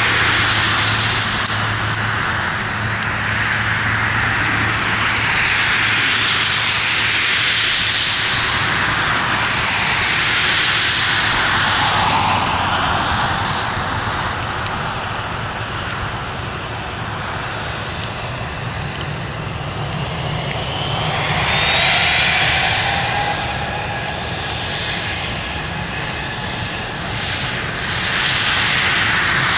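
Airbus A320's twin jet engines running at low taxi thrust as the airliner taxis onto the runway. A continuous jet rush and whine that swells and fades as the aircraft turns, with a tone rising in pitch about two-thirds of the way through.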